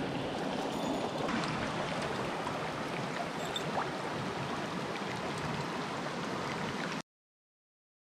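Mountain stream rushing over rocks, a steady wash of water. It cuts off suddenly to complete silence about seven seconds in.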